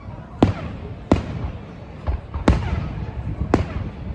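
Fireworks shells bursting: four sharp booms roughly a second apart, each with a short echoing tail, and a fainter bang between them, over a low rumble.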